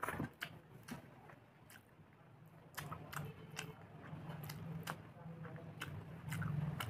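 A person chewing food close to the microphone, with scattered wet clicks and crunches. From about three seconds in, a low steady hum runs underneath and grows louder near the end.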